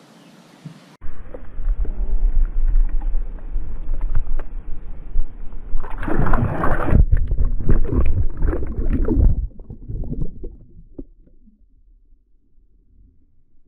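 Muffled underwater sound heard through a submerged camera: low rumbling and sloshing water, turning to loud churning and splashing from about six to nine and a half seconds in, then dying down to a faint murmur.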